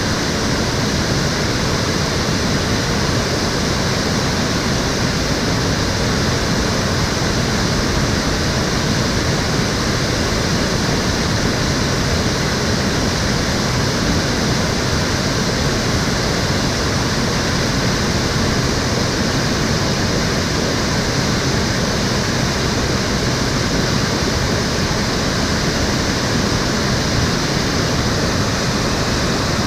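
Water of a shallow urban stream rushing and splashing steadily over its stepped bed, a constant even rush with no changes.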